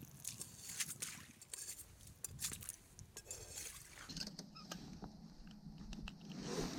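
Faint scattered clicks and rustles of hands handling small ice-fishing tackle.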